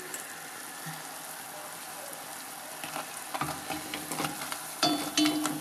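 Yum yum dough frying in hot oil, a steady sizzle. From about three and a half seconds in, a metal utensil clinks and scrapes against the pot as the pieces are turned, with a short ringing note near the end.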